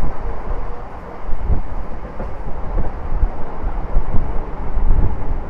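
Electric multiple unit (EMU) local train running at speed, heard on board at the open door: a heavy rumble of wheels on the track with rushing air, and several uneven knocks as the wheels pass rail joints.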